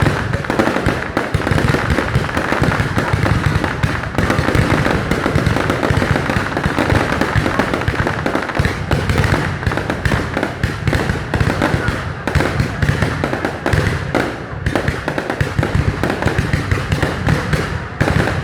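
Fireworks display in a dense, unbroken barrage: many overlapping shell bursts and crackling reports every second, with no let-up.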